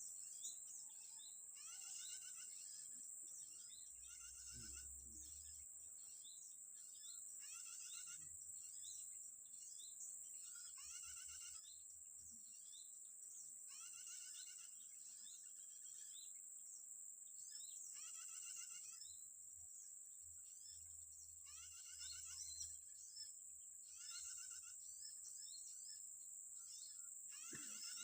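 Bird call repeated about every two seconds: each time a short, quick run of chirping notes, over a steady high buzz of insects.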